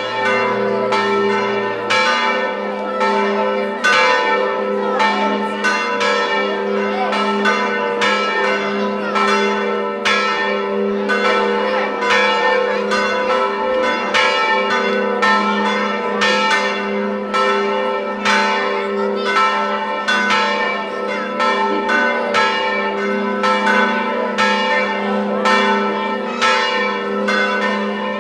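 Church bells ringing in a steady, even peal of about three strokes every two seconds, their tones sustained and overlapping. The ringing starts abruptly.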